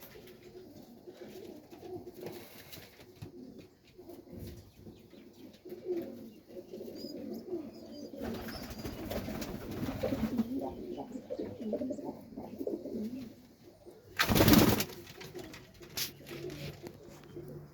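Serbian highflyer pigeons cooing in a loft, several birds calling over one another. A loud, brief rush of noise breaks in about fourteen seconds in.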